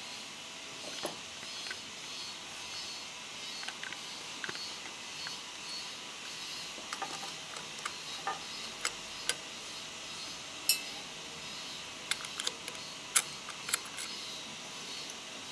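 Scattered sharp clicks and small metallic taps as the exposed needle-bar mechanism of an industrial sewing machine is handled, over a faint steady hiss. The clicks come more often in the second half, with a few louder ones.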